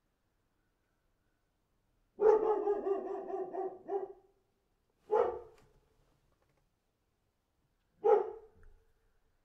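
Dog barking at a young brown bear that is eating its food: a string of barks lasting about two seconds, then two single barks a few seconds apart.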